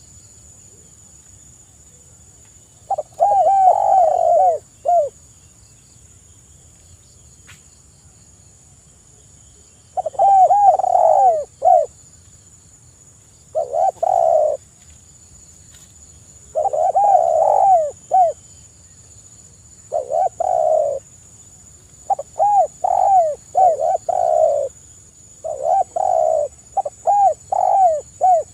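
Spotted dove cooing: short phrases of several coos each, repeated after pauses that grow shorter toward the end.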